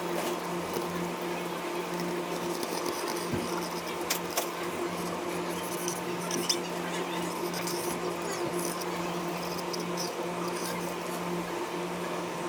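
A steady hum with scattered light clicks and taps.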